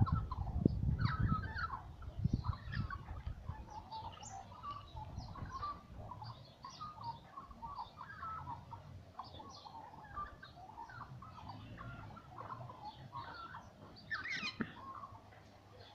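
Australian magpies singing, a run of short chirping, warbling notes with a louder rising call near the end. Low knocks and rumbles of the phone being handled in the first couple of seconds.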